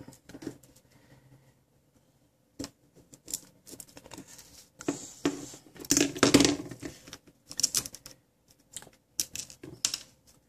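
Plastic opening picks clicking and scraping against the edge of a Samsung Galaxy Note 2's cracked front glass as they are pried in under it, in irregular bursts with the busiest stretch about halfway through.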